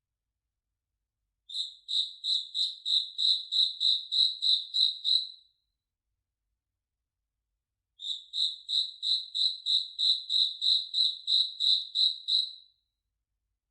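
Cricket chirping: two runs of evenly spaced, high-pitched chirps, about four a second, each run lasting about four seconds with a silent gap between them.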